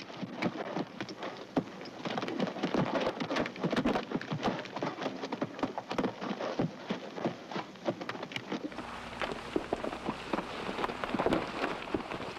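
A dense, irregular patter of many small taps and clicks. About nine seconds in, a steady low rumble and a high hiss join it.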